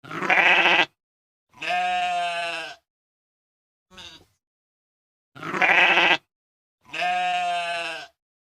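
A cat making goat-like bleating calls: a short bright call, a longer steady one, then a brief faint one, with the same three calls repeated about five seconds later.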